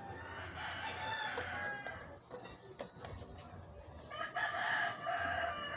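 Rooster crowing twice: a crow of about two seconds at the start and another about four seconds in.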